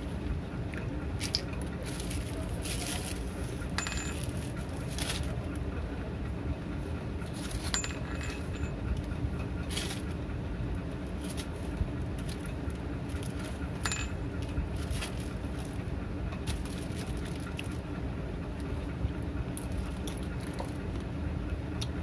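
Scattered light clicks and clinks of almonds being handled and shaken in a plastic packet, a sharper clink about fourteen seconds in, over a steady low background hum.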